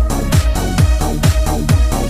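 Electronic dance music from a DJ remix mix: a heavy kick drum on every beat, a little over two beats a second, under sustained synth tones.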